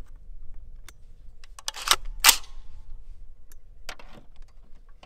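Handling noises as a scoped AR-style rifle is lifted and set onto a shooting rest on a folding plastic table: scattered clicks and knocks, with two short, loud scraping noises about two seconds in.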